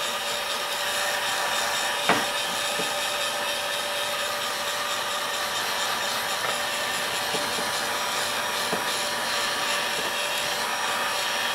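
Wagner electric heat gun running steadily, its fan blowing hot air in an even rush with a faint hum, used to warm double-sided adhesive tape so it sticks better. A single light tap about two seconds in.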